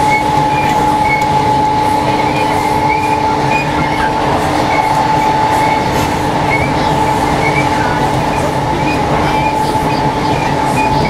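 Cabin running noise of a Class 318 electric multiple unit: a steady rumble of the train on the rails with a steady whine and a lower hum held throughout, and faint high chirps recurring every half second or so.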